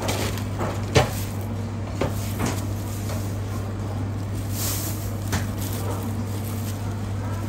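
Kitchen knife slicing geoduck and knocking on a plastic cutting board, a handful of sharp knocks with the loudest about a second in, over a steady low hum.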